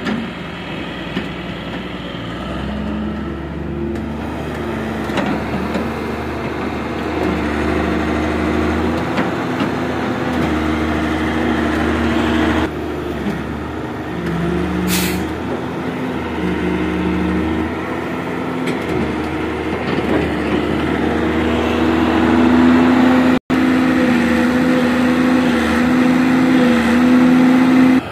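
Diesel engine of a Hitachi wheeled excavator running under load as the machine drives through deep mud, its pitch stepping up and down and growing louder near the end. A brief hiss about fifteen seconds in.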